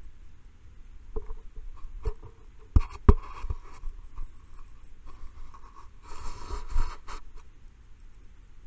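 Kittens bumping and scraping against the camera: a few sharp knocks on the housing, the loudest about three seconds in, then a longer bout of scuffling fur and scratching around six to seven seconds in.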